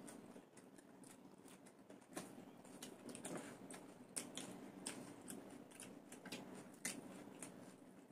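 Faint eating sounds from two people eating rice and curry with their hands: irregular sharp wet clicks and smacks of chewing and of fingers working the food on the plates, over a faint steady low hum.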